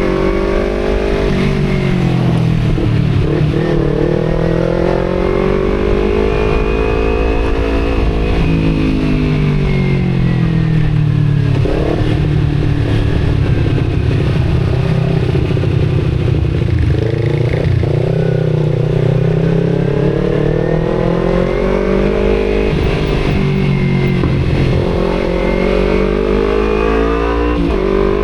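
Kawasaki Z250's parallel-twin engine through an aftermarket Akrapovic exhaust while riding. The engine note climbs and falls repeatedly as the rider accelerates, shifts gear and rolls off the throttle, with sudden drops in pitch about twelve, eighteen and twenty-seven seconds in.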